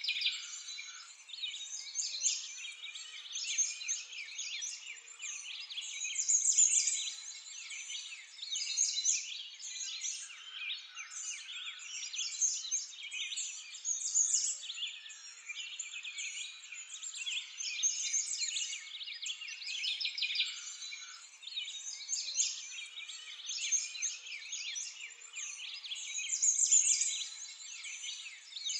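A dense chorus of small songbirds chirping without a break, all high-pitched.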